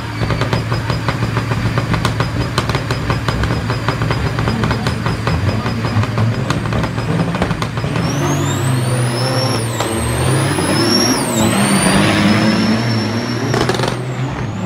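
Diesel engines of two semi trucks pulling loaded flatbed trailers, revving hard at the start line. About eight seconds in they launch, and the turbocharger whistles rise in pitch, dropping back twice at gear changes and climbing again as the trucks pull away.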